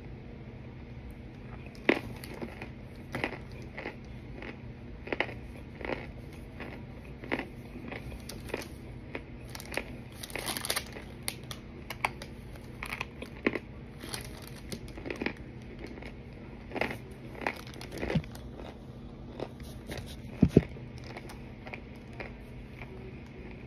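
Someone biting and chewing pieces of a pressed cornstarch brick, with a sharp crunch about every second and a quick run of crunches mid-way, over a steady low hum.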